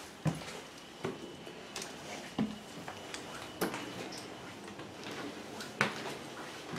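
Slow footsteps and scuffs with a handful of sharp knocks at irregular intervals, roughly one every second or two.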